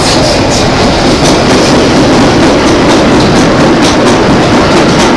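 Vintage IRT Lo-V subway car running through a tunnel, heard from inside the car: a loud, steady rumble and rattle with quick clicks of the wheels over the rail joints.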